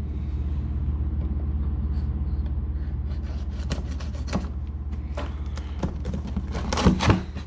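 Cardboard box being opened and an RC crawler handled: scattered rustles, scrapes and small knocks from about three seconds in, with a louder handling noise near the end. A steady low hum runs underneath.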